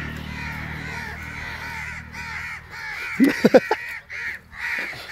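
Many crows cawing at once in a continuous, overlapping chorus, the kind of mobbing crows raise at a hawk on its kill. A short loud burst of sound cuts in a little after three seconds.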